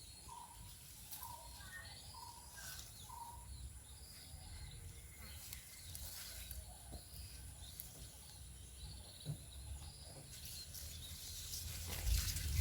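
Rural outdoor ambience: a bird gives a short call about once a second for the first three seconds while other birds chirp higher up, over a steady high insect drone. A low rumble with a few clicks swells near the end.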